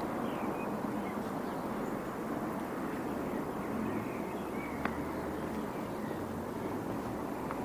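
Steady, rumbling wind noise on the microphone, with a few faint high chirps and one sharp click about five seconds in.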